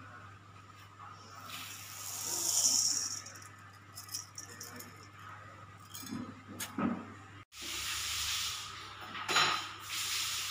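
Uncooked glutinous rice grains shifting and rattling against a stainless steel bowl as a tin measure is lifted out of the rice, with a swell of grainy hiss and scattered clicks. About halfway through the sound cuts sharply to a steadier hiss.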